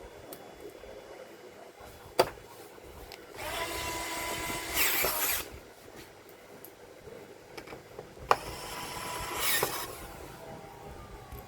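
Electric screwdriver running twice for about two seconds each, fastening screws, with a sharp click before each run.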